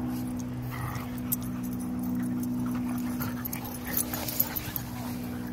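Dogs playing rough together, with short dog vocal sounds over a steady low hum. A few sharp clicks sound about four seconds in.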